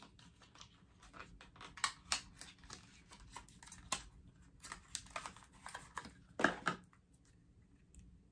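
Small clicks and taps of hands and long fingernails working at a blush duo compact and its packaging, trying to get it open, with a louder clatter about six and a half seconds in.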